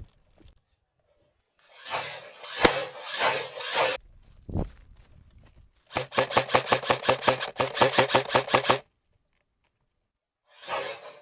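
Airsoft gunfire: a single sharp crack amid a noisy rush about two and a half seconds in, then a burst of rapid automatic fire, about seven shots a second over a steady motor hum, lasting nearly three seconds.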